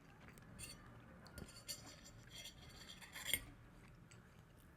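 Faint clinks and scrapes of cutlery against a plate while eating, with one slightly louder clink about three seconds in.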